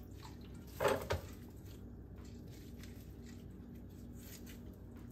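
Two quick knocks close together about a second in as something is handled at the kitchen sink, over a faint steady hum.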